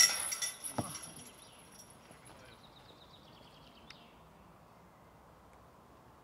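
A disc golf putt hitting the chains of a metal disc golf basket: the chains jangle and ring, fading out over about three seconds with a few small clinks.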